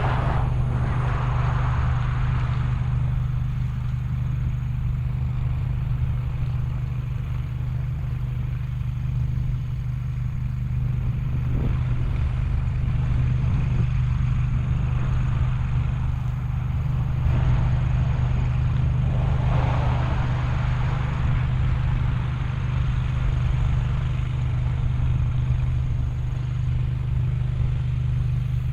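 A vehicle engine running steadily with a low, even hum, with a couple of brief swells of noise.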